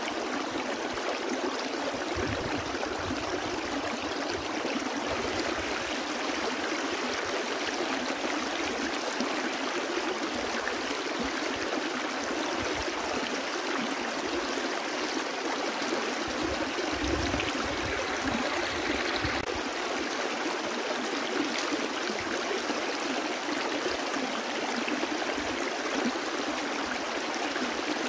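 Small brook flowing: a steady, unbroken rush and babble of water.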